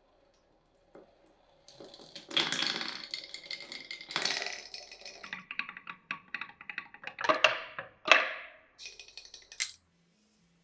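Glass marbles rolling and clattering down a wooden marble run, a rattling stream of quick clicks with ringing tones, and two loud sharp clacks about 7 and 8 seconds in. It stops abruptly near the end.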